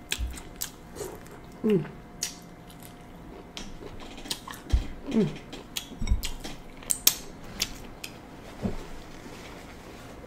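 Close-up eating sounds of buttery seafood: wet lip smacks, mouth clicks and finger-licking, with three short sounds that fall in pitch.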